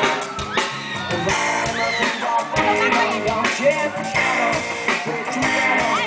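Rock band playing: electric guitar and drum kit, with bending sung or guitar lines and no words picked out.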